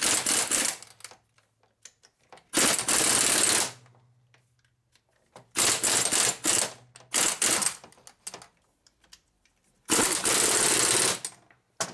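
Pneumatic impact tool hammering in rattling bursts of about a second, five in all with short pauses, driving a part further onto its shaft in the transmission; it is only going on a little with each burst.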